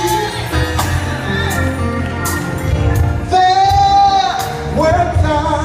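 Church gospel music: a singer holding and bending long notes over a band with a steady bass and beat.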